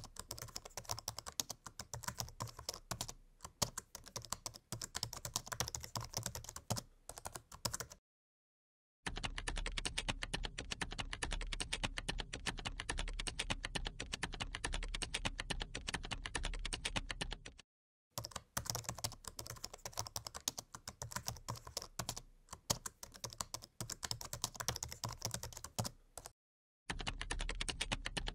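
Rapid typing on a computer keyboard, a fast stream of key clicks that stops for about a second three times: about eight, eighteen and twenty-six seconds in.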